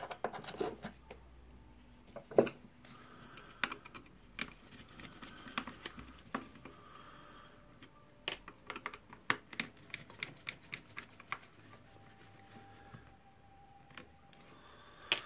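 Light, scattered clicks and taps of a screwdriver and small screws being worked out of a rotary hammer drill's carbon brush holder, with handling of the tool's plastic housing.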